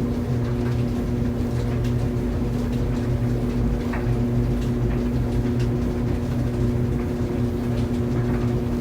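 Clothes dryer running: a steady motor hum over a low rumble, with faint light ticks scattered through.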